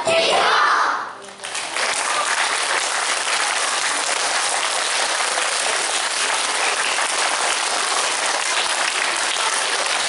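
Audience applause, steady and even, starting about a second and a half in after the sung music ends.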